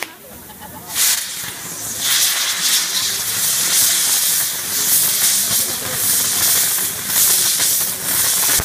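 Hissing of a burning castillo firework wheel, a star-shaped frame of lances turning as it burns. The hiss swells and fades in waves about once a second.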